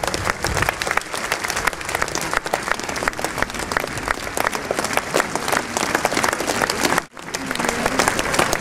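Large outdoor crowd applauding: dense, sustained clapping from many hands, with a momentary drop about seven seconds in before it resumes.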